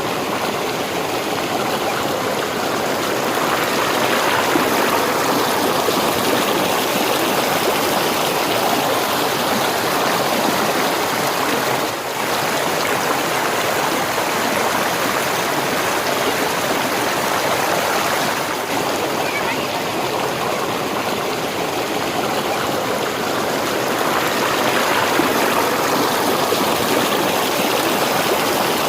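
Waterfall's falling water rushing steadily, a constant loud hiss of water with short breaks about twelve and eighteen seconds in.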